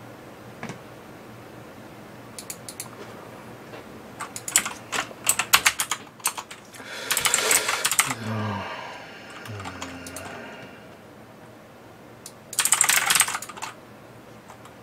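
Computer keyboard being typed on in separate bursts of key clicks, with a fast dense run of keystrokes near the end.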